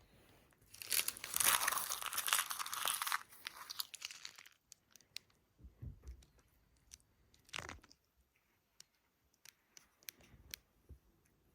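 A wrapper being crumpled and crinkled for about two and a half seconds, followed by scattered light clicks and a couple of soft thumps.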